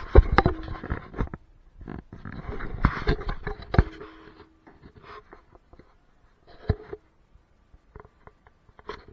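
Handling noise from an Akaso action camera being moved about in the hand: bursts of rubbing and rustling with sharp knocks. It is loudest in the first second and again around three seconds in, then thins out to scattered clicks.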